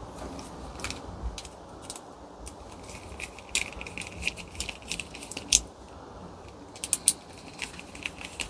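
Irregular light metallic clicks and taps of small pilot-assembly parts being handled and tightened back into a gas water heater's burner.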